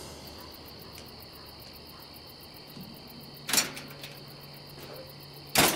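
Faint steady cricket chirring, with two brief loud noise bursts, one about three and a half seconds in and one near the end.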